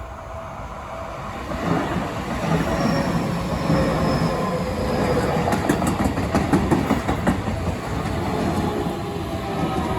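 Seibu Ikebukuro Line electric commuter train passing close by. It builds to a loud rumble over the first two seconds, with quick wheel clacks over the rail joints in the middle and a faint whine that slowly falls in pitch.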